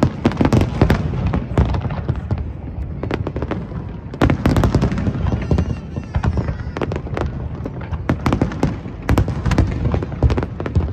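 Aerial fireworks display: many overlapping booms and sharp cracking bursts over a constant low rumble, coming thickest in clusters about a second in, around four seconds and around eight to nine seconds.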